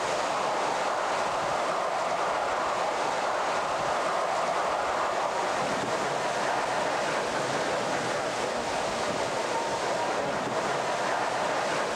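Steady noise of hurricane-force wind and rough sea, with the wind buffeting the microphone.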